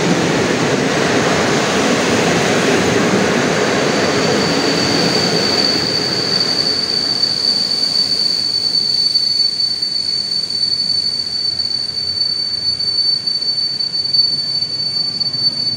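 Passenger coaches of an intercity train rolling slowly past at a station, slowing to a stop. The wheels rumble, easing off over the second half. A steady high-pitched squeal from the running gear starts about four seconds in and holds.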